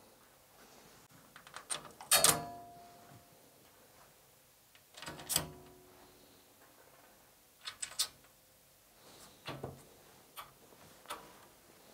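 Screws with washers being put through the holes of a steel rack cabinet's side and base panels: scattered metallic clicks and knocks, the two loudest, about two and five seconds in, ringing briefly like struck sheet metal.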